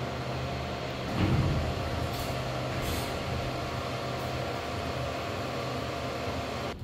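A steady low engine-like hum runs throughout, swelling briefly into a louder rumble about a second in, with a few faint clicks.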